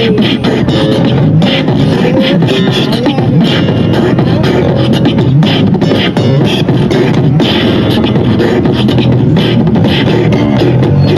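Electric bass guitar played live through a small amplifier, with a busy percussive beat running under it.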